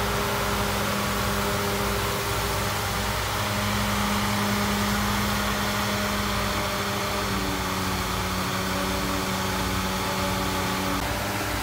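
Diesel engines of hydraulic excavators running: a steady drone whose pitch steps up or down slightly a few times, over a low rumble.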